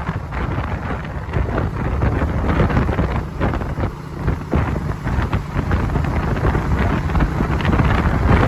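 Wind buffeting the microphone, over a steady low rumble of vehicles on the road.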